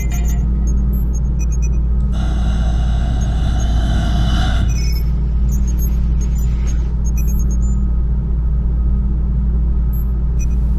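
A steady deep rumble and hum of a film's spaceship-interior ambience. Sparse short high electronic beeps and blips from the control consoles come and go over it. About two seconds in, a hissing, whining swell rises for a few seconds and then drops away.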